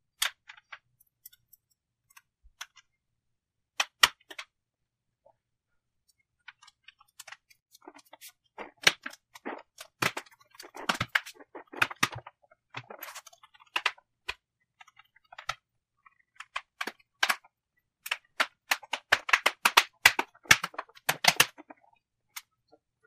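Irregular sharp plastic clicks and snaps of a laptop's bottom cover being pressed along its edges and clipped into place by hand. A few scattered clicks come first, then a dense run of snaps through the middle and later part.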